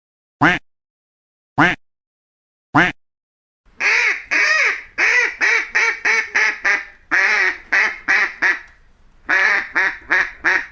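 Duck quacking: three single quacks about a second apart, then after a short gap a fast run of quacks lasting about five seconds, a brief pause, and another quick run near the end.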